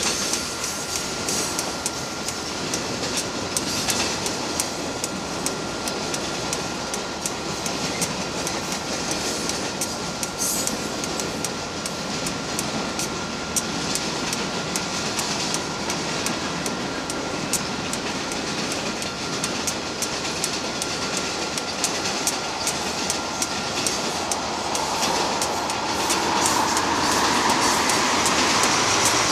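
Freight cars of a Canadian Pacific manifest train rolling past at close range: a steady rumble of steel wheels on rail with rapid clicks over the rail joints, growing louder near the end.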